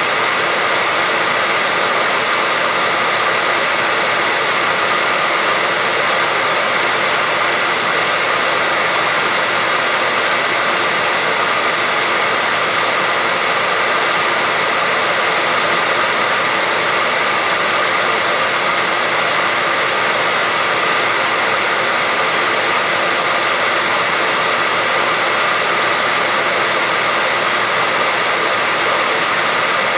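Hair dryer running steadily, a loud, even rush of air with a faint high whine from its fan motor that does not change.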